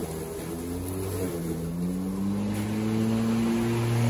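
Greenworks 20-inch 12-amp corded electric lawnmower running while cutting grass: a steady motor hum whose pitch rises slowly over the second half and grows a little louder near the end.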